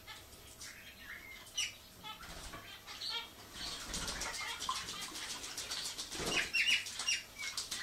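A small green parrot bathing in a steel water bowl, fluttering its wings rapidly and splashing from about four seconds in. Small finches chirp in short calls before and during the splashing.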